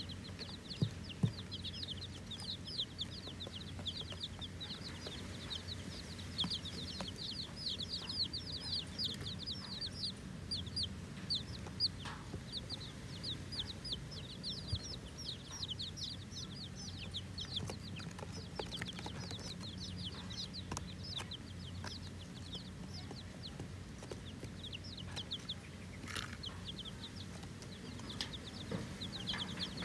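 A brood of newly hatched chicken chicks peeping nonstop: many short, high, falling peeps overlapping in a rapid stream, over a faint steady low hum.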